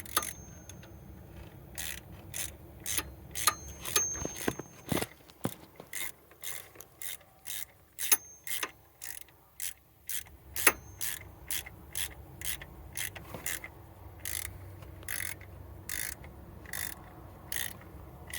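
Hand ratchet wrench clicking steadily as a bolt is turned, about two sharp clicks a second.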